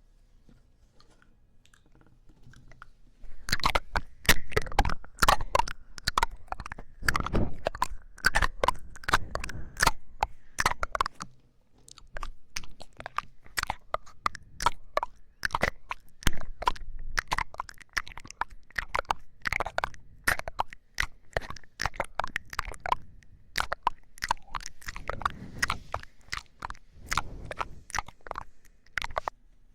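Close-miked mouth sounds: dense, irregular wet clicks and crackles starting about three seconds in, with a brief pause partway through.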